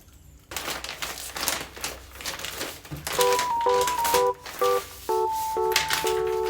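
A quick run of clicks and taps, joined about three seconds in by a simple melody of short electronic notes.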